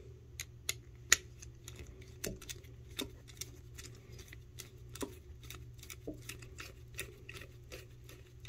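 Screwdriver turning a 10-32 stainless machine screw into an expansion nut in a toilet's seat-bolt hole: a run of light, irregular clicks, several a second, with a sharper click about a second in. The screw is still turning freely, without friction, before the nut starts to expand and grip.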